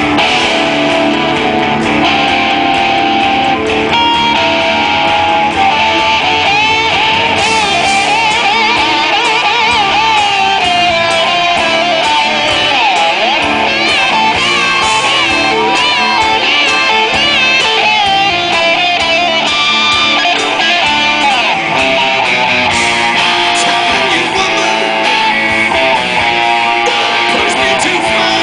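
Rock band playing live, with a lead electric guitar solo full of string bends and vibrato over the band.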